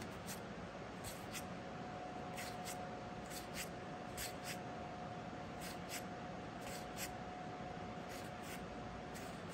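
Magic: The Gathering cards, many of them foil, being slid one at a time from the back of a hand-held stack to the front: soft paired flicks and scrapes of card edges about once a second, over a faint steady tone.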